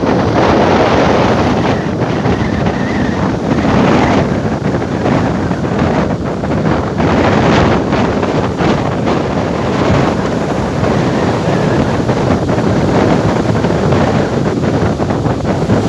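Strong wind buffeting the microphone over large sea waves breaking on the shore, the noise swelling and easing every few seconds.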